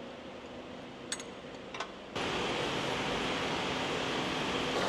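A faint hum with two light clicks, then about two seconds in a steady engine noise starts abruptly: a Jeep's engine idling, heard from close to the engine bay.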